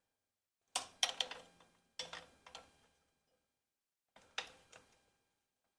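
Metal hand tools clinking and clicking against the engine in three short bursts of sharp metallic strokes while bolts are worked loose.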